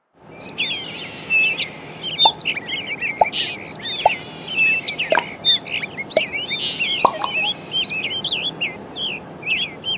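Many birds chirping and calling at once, with dense overlapping short chirps and whistles. It begins abruptly just after the start and thins out in the last few seconds.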